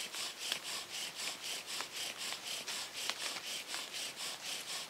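Bow drill with a balsam fir spindle and hearth board, bowed with a paracord bow: a quick, even rhythm of rasping strokes of the spindle grinding in its notch. An ember has already formed, and the bowing goes on to keep it alive in the damp air.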